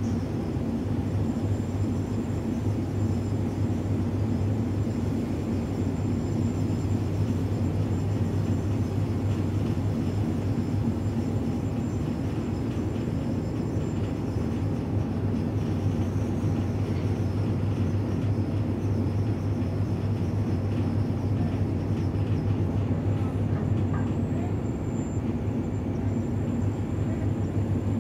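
Tugboat's diesel engines running steadily under load, a deep even drone, while towing a tanker on a taut bow line.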